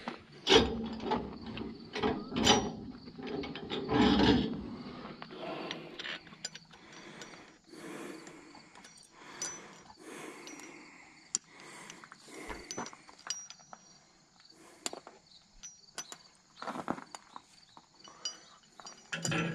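Steel tie-down chain and its chain binder being worked loose on a steel trailer deck. A run of clanks and chain rattles comes in the first few seconds, then scattered metallic clicks and scrapes as the binder is worked.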